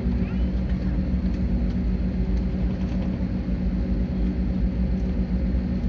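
Steady low rumble inside an Airbus A321neo's passenger cabin after landing, with a constant hum from the engines and air-conditioning.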